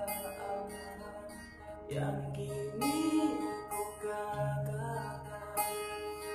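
A man singing to his own acoustic guitar, the guitar playing chords with low bass notes under the voice.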